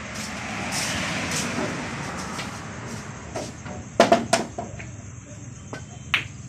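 Pool cue and balls clicking during a shot: a sharp pair of clicks about four seconds in, with another click near the end. A rushing noise swells and fades over the first two seconds.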